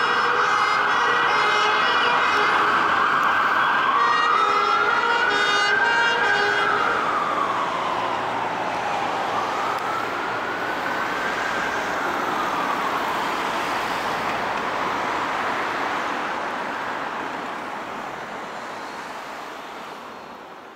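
UK emergency vehicle siren: a fast alternating warble for the first few seconds, giving way to a slow rising and falling wail, over road noise, fading away over the last few seconds.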